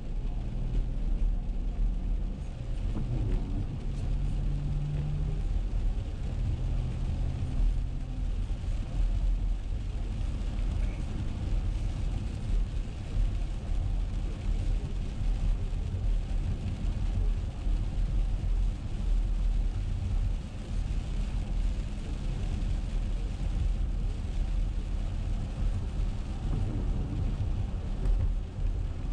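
Car cabin noise while driving on a wet road in the rain: a steady low rumble with a hiss spread over it.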